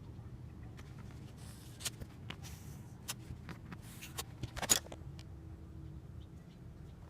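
Scattered small clicks and light handling knocks over a steady low hum, with a sharper cluster of clicks about four and a half seconds in.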